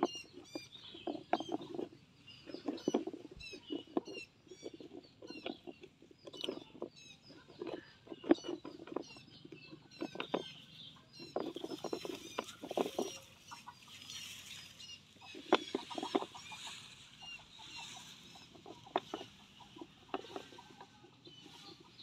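Young rabbits crunching on raw carrot pieces: irregular runs of quick crisp chewing, each lasting about a second, with short pauses between.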